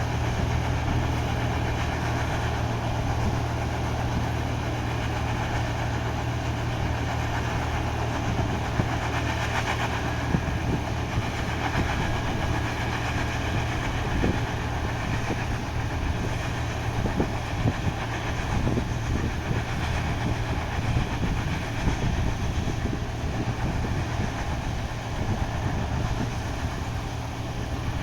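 Combine harvester running steadily, a constant low engine hum under a steady mechanical noise, with scattered sharp knocks from about a third of the way in.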